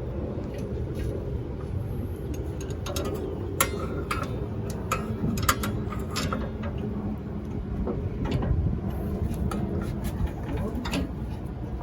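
Scattered metallic clicks and clinks of hand tools and hardware as suspension parts are fitted to a pickup's leaf spring, over a steady low rumble.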